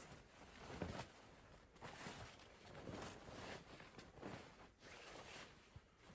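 Faint, irregular rustling and soft crunches, about one a second, of someone moving about and handling things.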